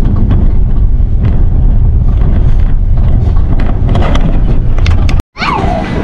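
Loud low rumble of wind buffeting the microphone, with faint scattered clicks. It cuts off abruptly about five seconds in, and a high, gliding voice starts just before the end.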